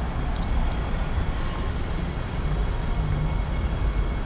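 Steady low rumble of city street noise: traffic passing, with no single event standing out.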